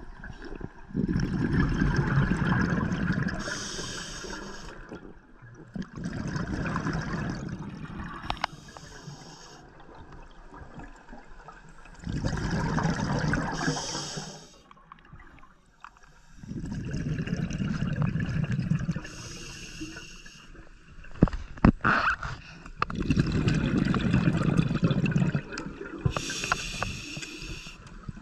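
A scuba diver breathing through a regulator underwater: loud bursts of exhaled bubbles rumbling and gurgling, each followed by a short hiss of air drawn through the regulator, repeating about every five or six seconds. A few sharp clicks sound a little past the middle.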